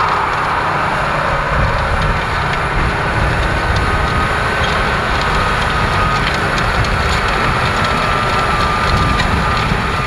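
McCormick X7.621 tractor's six-cylinder engine running steadily under load as it pulls a mounted cultivator through the soil, with a thin whine over the engine's drone.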